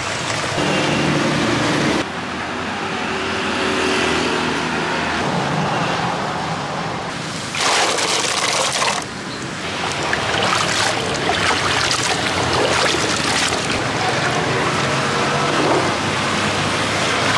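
Small berries tipped from a plastic basket into a basin of water, a splashing rush about eight seconds in, then hands swishing the berries around to rinse them. A steady hiss runs underneath.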